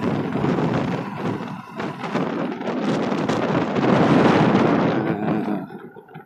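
Wind buffeting a phone microphone on a moving motorcycle: a loud, rough rumble that swells about four seconds in, then dies away suddenly near the end.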